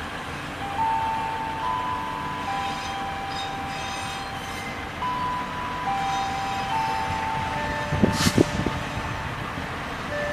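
Diesel locomotive hauling a container freight train past: a steady low rumble of engine and wheels, with thin high squealing tones from the wheels on the curving track that shift pitch every second or two. A quick run of sharp clanks from wheels over rail joints comes about eight seconds in.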